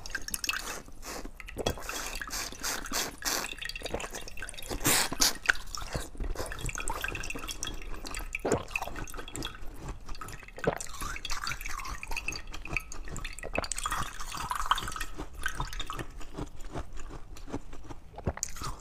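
Mouth sounds of eating slushy ice from a frozen plastic water bottle: wet sucking and slurping with dense small crackles and clicks of soft ice, and a few sharper snaps as pieces are bitten.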